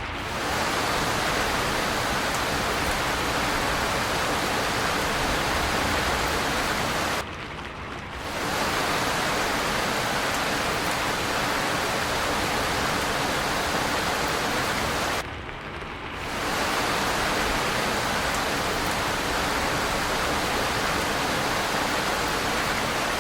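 Steady rain falling, an even hiss. Twice the high part of the hiss drops away for about a second and then returns.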